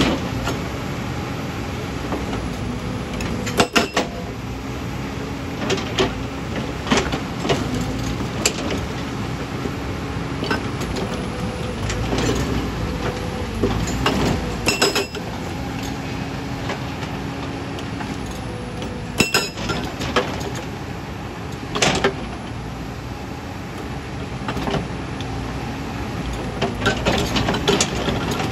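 Hydraulic rock breaker on a JCB crawler excavator hammering its chisel into large stones, over the excavator's running engine. A low steady tone comes and goes, and sharp clanks and cracks stand out now and then as the rock gives.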